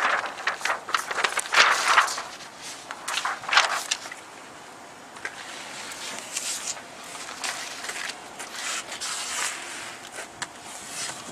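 Irregular rustling, crinkling and scraping of clear protective film being handled and worked onto a truck grille, louder in the first few seconds and softer after.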